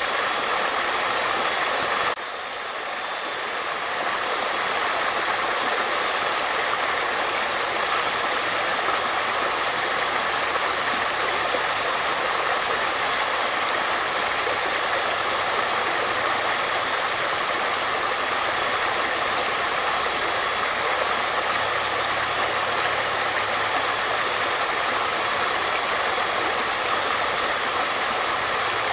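Flowing water, a steady rushing noise with no pauses. It drops suddenly in level about two seconds in and swells back over the next two seconds.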